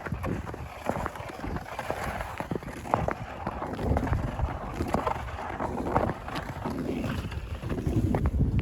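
Footsteps crunching through snow at a walking pace, with a sled being pulled along over the snow, over a low rumble of wind on the microphone.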